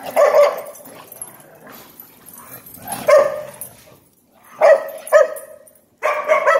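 Dog barking: loud single barks and quick pairs, spaced a second or more apart.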